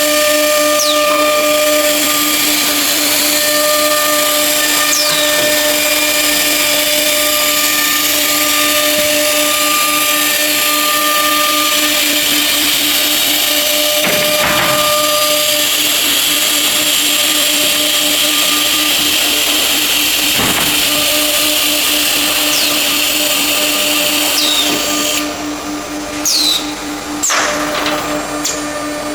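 CNC nesting router running: the spindle gives a steady whine over a loud hiss of cutting and dust extraction. Near the end the hiss drops away, leaving the steady spindle whine.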